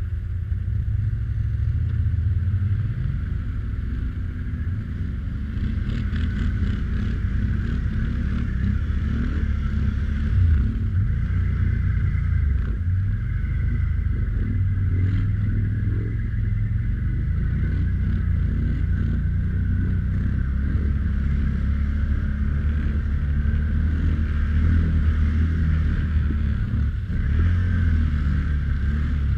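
ATV engine running steadily under load while crossing a creek, a continuous low rumble with a few faint knocks.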